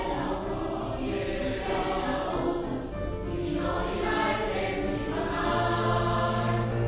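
Background music of a choir singing slow, held notes.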